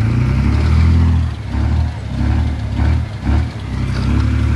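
Heavy earthmoving machine's engine revving in repeated surges under load, rising and falling about once a second.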